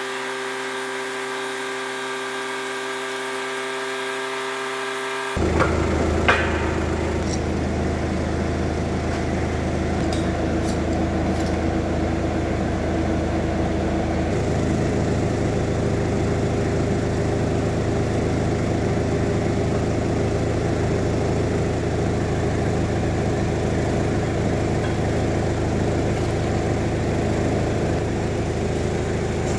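A steady hum of several tones for the first five seconds, then an abrupt switch to a forklift engine idling steadily, with a few light clicks.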